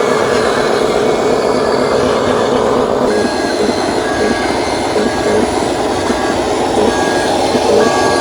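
Steady mechanical whirr and grinding of RC construction machines' motors and gear drives running. From about three seconds in, a reversing beeper sounds about once a second.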